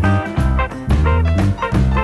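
Background music: an upbeat swing-jazz tune with a walking bass line and plucked guitar.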